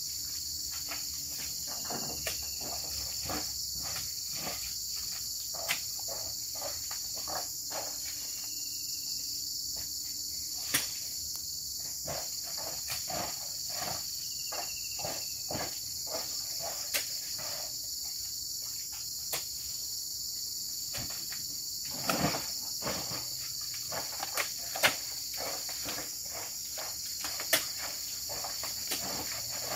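Steady high-pitched insect chorus, with scattered short thuds and knocks as oil palm fruit bunches are speared and thrown up into a lorry bed; the loudest knocks come in the last third.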